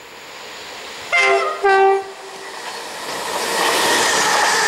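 LNER Azuma high-speed train sounding its two-tone horn about a second in, a short high note then a lower one, followed by the rising rush of the train passing at speed.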